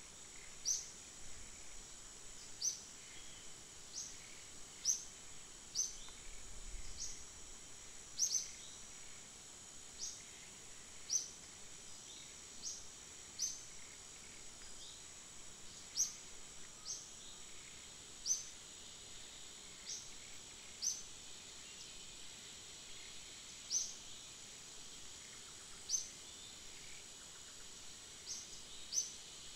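Forest ambience: a steady high insect drone, with short sharp high chirps repeating roughly once a second.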